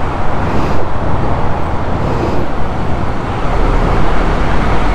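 Steady motor-vehicle rumble, heaviest in the deep low end, unbroken and without a clear engine pitch.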